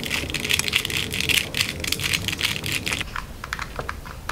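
2x2 Rubik's cube being scrambled: rapid clicking and clacking of its plastic layers turning, thinning to a few scattered clicks about three seconds in.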